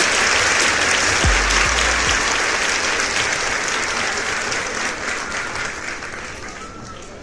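Applause, fading steadily and cutting off just at the end, with one last deep bass note of music about a second in.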